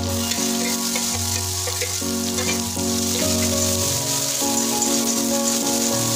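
Chopped tomatoes, green chillies and onions sizzling in hot oil in a metal kadai as they are stirred with a spatula. Background music with held notes that change about every second plays throughout.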